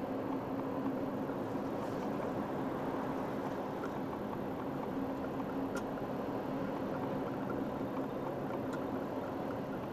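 Steady engine and tyre noise heard inside a moving car's cabin, with a constant low hum and a couple of faint ticks.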